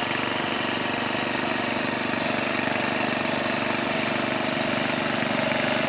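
Snowblower's small single-cylinder engine running steadily with a rapid, even firing chatter as it clears snow from a driveway.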